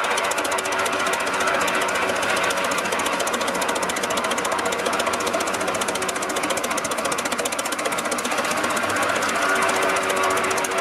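Holt 75 crawler tractor's large four-cylinder petrol engine running under load while pulling an implement, giving a rapid, even run of beats.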